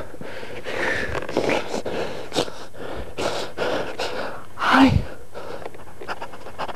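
A man breathing hard and sniffling right at the microphone, with one short falling whimper nearly five seconds in: mock crying.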